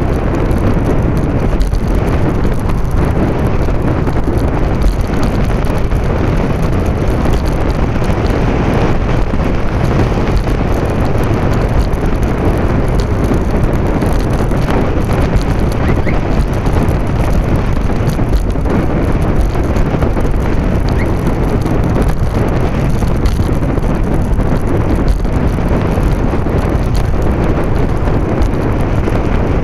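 Steady, loud low rumble of wind buffeting the microphone of a camera on a bicycle riding along a paved path.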